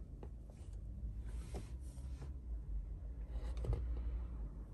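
Light taps and soft scratchy rustles of a handheld scan tool being handled and its touchscreen pressed, over a low steady hum.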